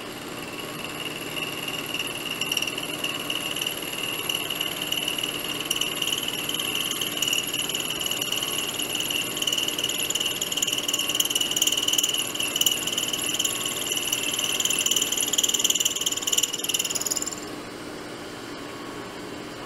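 A four-flute end mill cutting steel on a milling machine, fed by hand with the quill: a steady high-pitched whine that builds louder, then cuts off suddenly about 17 seconds in as the cut ends. Under it the mill's spindle and motor run with a steady hum.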